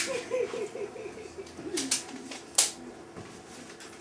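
Two sharp clicks, a little under a second apart near the middle, over faint wavering voices and a low steady hum.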